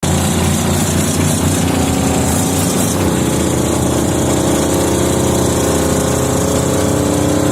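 V8 engine of a wood chipper running steadily.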